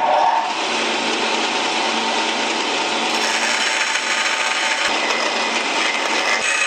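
Power saw cutting a slot in a thin ash disc, a steady continuous cutting noise.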